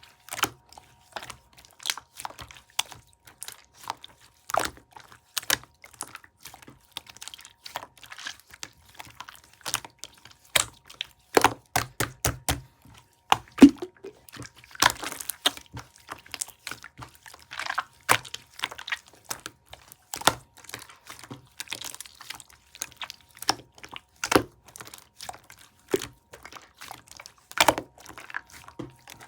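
Clear slime being squeezed and pressed by hand, giving irregular sticky clicks and small air-bubble pops, which come thickest around the middle.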